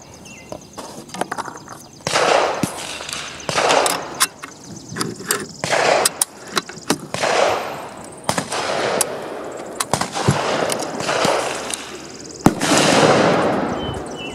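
Rifle fire on an outdoor range: a string of gunshots at irregular intervals, about one every second or two, sharp cracks mixed with echoing booms, the loudest a sharp crack near the end.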